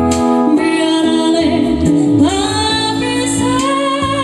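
Woman singing an Ambonese song into a handheld microphone over a steady instrumental backing, sliding up about two seconds in into a long held note with vibrato.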